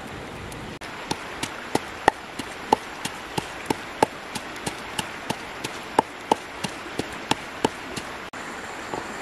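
Wooden pestle pounding in an earthenware mortar, a steady rhythm of about three knocks a second that starts about a second in and stops near the end, over a steady background hiss.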